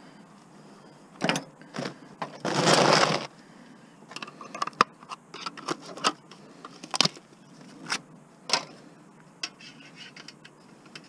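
Plug-in circuit boards and a screwdriver being worked out of a big-screen TV's plastic chassis: scattered clicks, knocks and rattles, with one louder scrape lasting about a second a few seconds in.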